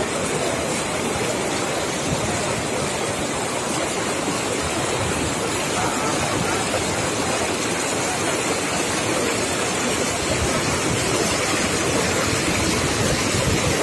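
River water pouring steadily over the edge of a low weir, a constant rush of white water.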